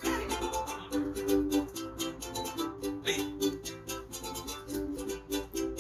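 Two ukuleles strummed together, playing chords in a quick, even strumming rhythm.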